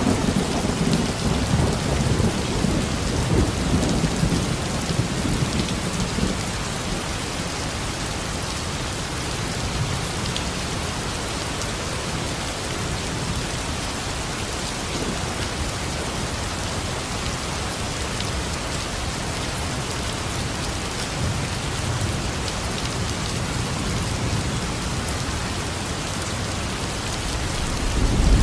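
Steady rain falling, with a low rumble of thunder in the first few seconds that fades away, and another starting to build right at the end.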